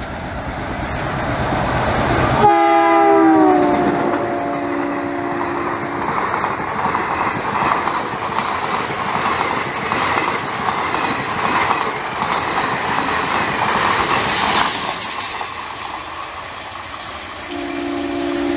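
WDM-3A diesel locomotive, with its ALCO 16-cylinder engine, approaching at speed with its engine loud. At about two and a half seconds it sounds its multi-tone horn, which drops in pitch as the locomotive passes. The coaches then rush by with a rhythmic clickety-clack of wheels over rail joints, and near the end another horn blast begins.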